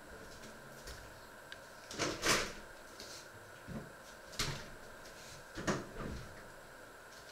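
Kitchen handling sounds: a handful of separate knocks and clunks such as a cabinet being opened and closed, the loudest about two seconds in, over a faint steady hum.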